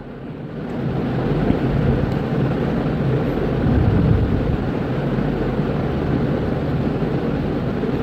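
Steady low rumbling noise that builds over the first second and swells slightly around the middle, with no distinct knocks or hammer blows.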